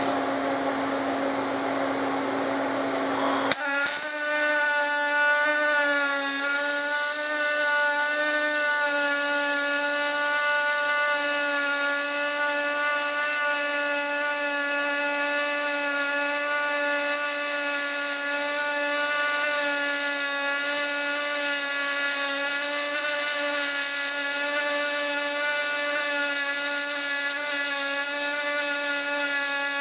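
MIG welding arc on aluminium from a water-cooled spool gun. After a steady hum, the arc strikes with a click about three and a half seconds in and then runs continuously as a steady buzzing tone with hiss.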